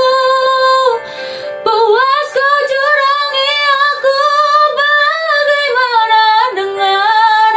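A young woman singing solo in Indonesian, drawing out long held notes that bend up and down, with a short break for breath about a second in.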